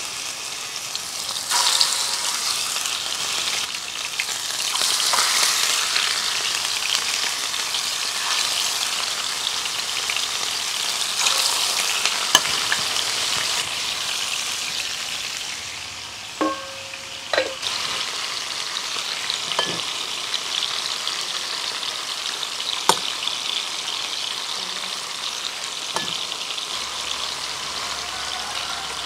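Marinated chicken pieces shallow-frying in hot oil in a pan: a continuous sizzle, fuller in the first half as the cold meat hits the oil, then settling. A few sharp clinks sound in the second half.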